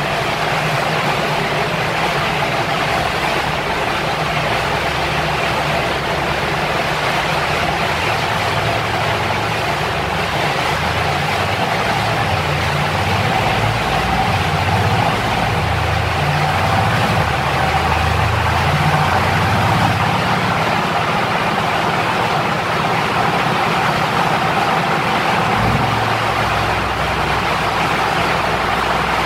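Mercedes-AMG C63 (W205) 4.0-litre twin-turbo V8 idling steadily on a chassis dynamometer, with a low, uneven rumble under a constant rushing noise and a faint steady tone.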